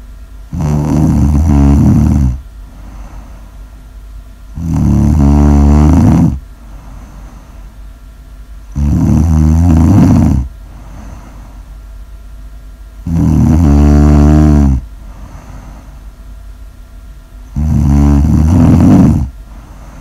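A sleeper snoring loudly: five long snores, each about a second and a half, coming about every four seconds, with a faint steady background noise between them.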